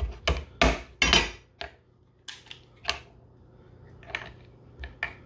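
A heavy cleaver-type kitchen knife knocking into and cracking the shell of a cooked lobster claw: a run of sharp knocks and cracks, loudest and closest together in the first second and a half, then a few sparser clicks of shell and knife being handled.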